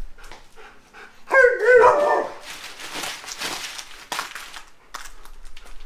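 Alaskan malamute giving one loud, wavering bark about a second in, lasting under a second, followed by hissy noise with scattered clicks.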